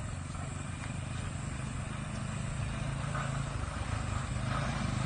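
A motor vehicle's engine running steadily, a low drone that slowly grows louder.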